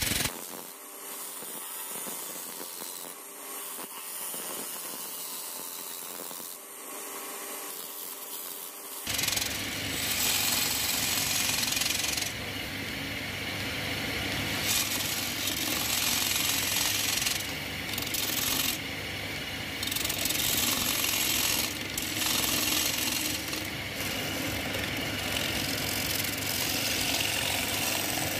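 A hand-held turning tool scraping and cutting the inside of a wooden bowl spinning on a lathe, a rough scraping hiss that comes and goes. About a third of the way in, a lower running noise from the lathe joins it.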